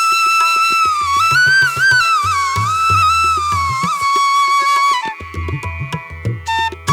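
Background music in an Indian classical style: a flute melody with sliding ornaments over a low drum beat. The flute breaks off about five seconds in while the drums go on.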